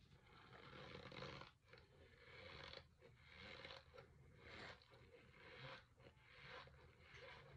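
A spoon digging into packed Argo cornstarch in its plastic tub, the powder squeaking and crunching as it is pressed. It comes as a run of rough strokes, each about a second long with short breaks between them.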